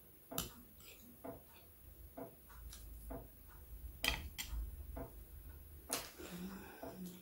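A metal spoon clinks and scrapes against china plates and bowls in a few sharp, irregular clicks while rice and salad are scooped up. Quieter chewing and eating sounds come in between.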